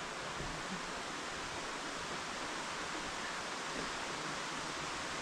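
Steady rushing of a waterfall: an even hiss of falling water that holds constant, with no breaks.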